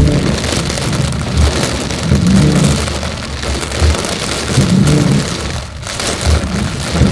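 Heavy rain pelting a car's roof and windshield, heard from inside the moving car. Under it, a low rumble from the car swells every two to three seconds.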